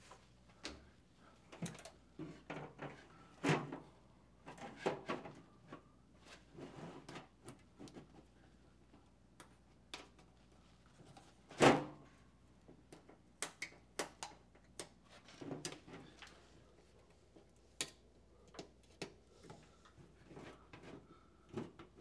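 Scattered handling noises, light clicks, knocks and rustles, as the top cover of a hybrid heat-pump water heater is worked back into place by hand, with one sharper knock about halfway through as the cover is pressed down.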